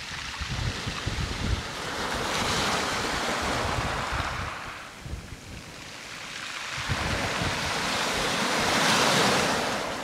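Small sea waves breaking and washing over a pebble beach, the surf hiss swelling twice, about two and a half seconds in and again near the end. Wind buffets the microphone, mostly in the first couple of seconds.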